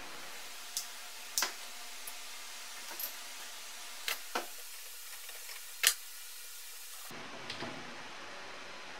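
Sharp metallic clinks and knocks of a hand tool and metal fittings on an oil cooler's line connections, about six of them at uneven intervals, the loudest about six seconds in, over a steady hiss.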